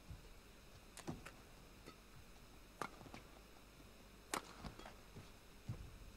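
Sharp cracks of badminton rackets striking a shuttlecock, single hits a second or more apart, the loudest a little past the middle where a serve starts a rally. Between hits there is only a faint hall hush.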